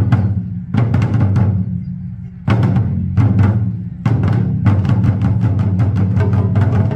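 Taiko drum ensemble playing deep barrel-drum strikes with sharp attacks, spaced apart at first and then a faster, steadier run of beats from about four seconds in.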